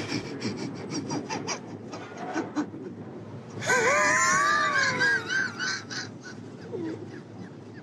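Light clicking and rustling, then a high voice sliding up and down in one long 'ooh' for about a second and a half, starting about three and a half seconds in.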